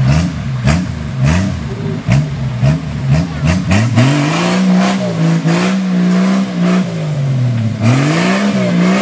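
Off-road vehicle engine revving up and down in quick blips, then held at a steady higher speed for a few seconds before dropping and rising again near the end. Repeated sharp knocks and clatter run over it.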